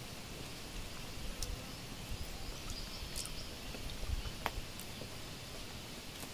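Faint rural outdoor ambience with insects, broken by a few light clicks and rustles as a banana-leaf wrapper is opened and handled.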